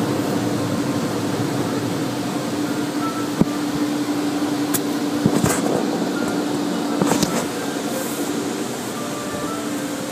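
Steady whirring drone of fans with a constant low hum, heard from inside a car cabin. A few short knocks and rustles come around the middle as the phone is handled.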